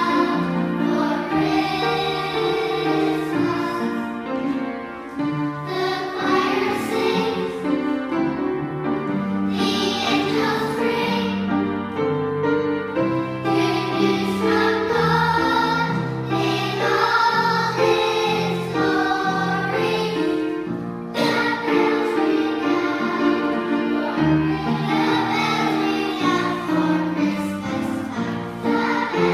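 A primary school children's choir singing a song together.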